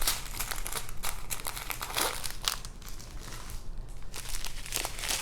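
Small plastic bags of square resin diamond-painting drills crinkling and rustling as they are handled, with a constant patter of small clicks and crackles.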